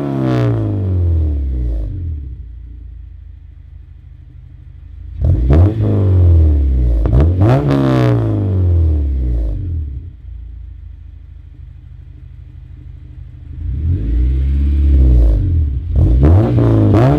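2011 Honda Civic Si's 2.4-litre four-cylinder with aftermarket header and exhaust, accelerating hard twice with a quieter low rumble in between. Each time the revs climb and drop several times as it shifts up through the gears.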